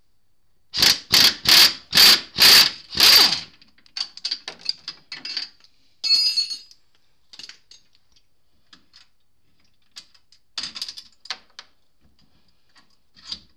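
Hand ratchet clicking as a socket on an extension backs out a front differential mounting bolt: six loud ratcheting strokes at about two a second, then quicker, fainter clicks. A short metallic ring about six seconds in, and scattered clicks again later.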